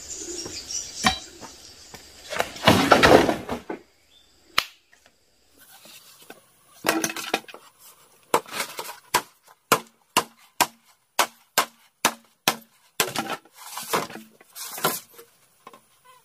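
A burst of rustling about three seconds in, then from about seven seconds in a run of sharp knocks, roughly two a second, like a tool striking wood.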